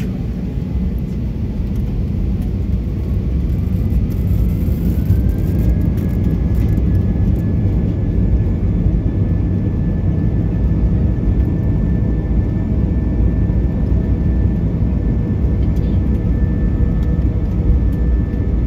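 Airbus A320's jet engines spooling up to takeoff thrust, heard inside the cabin over the wing. A whine climbs in pitch for a few seconds, then settles into a steady high tone over the heavy rumble of the takeoff roll, which grows louder early on.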